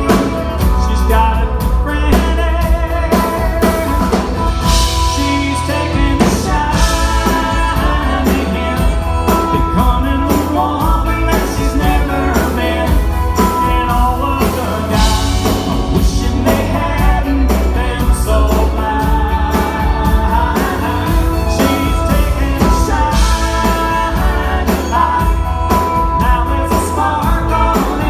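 Live band playing a country song: a male lead vocal over strummed acoustic guitar, with bass and drums underneath.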